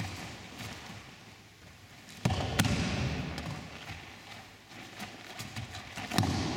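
Thuds of a body landing on a padded mat as a partner is thrown and takes a breakfall, twice: about two seconds in, followed by a second or so of rolling and rustling, and again near the end.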